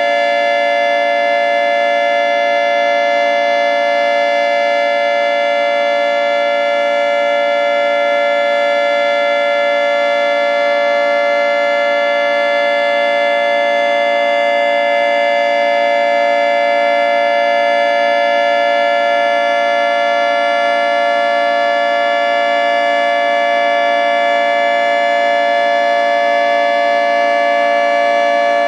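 Federal Signal 3T22 three-tone outdoor warning siren sounding its steady alert tone: a loud held chord of several pitches that stays level throughout.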